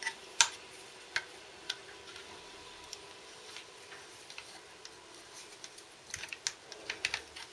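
Light metallic clicks and taps from handling a Suzuki Bandit's clutch slave cylinder casing while its bolts and nylock nuts are fitted by hand: a few sharp clicks in the first two seconds, then a cluster of small clicks near the end. A faint steady hum runs underneath.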